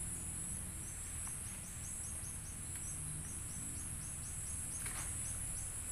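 Outdoor insect chorus: a steady high-pitched drone, with a run of quick repeated chirps, about five a second, for a few seconds in the middle.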